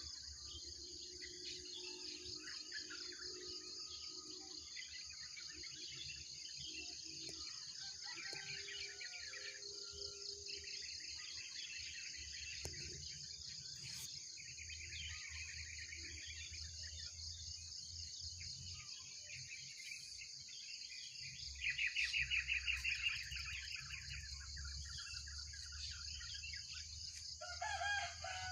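Varied birdsong, several birds chirping and singing in turn over a steady high insect trill, with a louder rapid bird trill about two-thirds of the way through.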